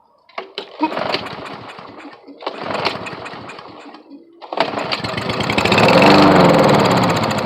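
Briggs & Stratton 5.5 hp lawn mower engine being pull-started: it fires briefly twice, then on the third try runs for a few seconds, the revs rising and then dying away. It is running only on brake cleaner sprayed into the carburetor, not on its own fuel: a sign of a fuel or carburetor problem.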